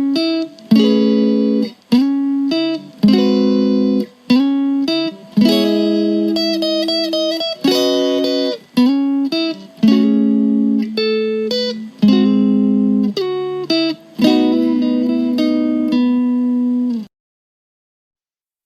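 Instrumental guitar music: plucked chords struck about once a second, each left to ring, stopping abruptly near the end.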